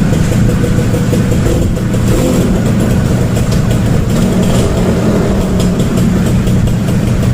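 Small two-stroke Suzuki motorcycle engine running with the revs rising and falling, on a freshly cleaned carburetor.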